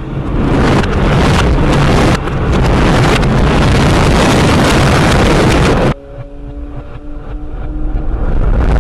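Emergency Alert System alarm audio played in reverse. About six seconds of loud, harsh noise, then a quieter stretch with two steady low tones, and a short loud burst at the end.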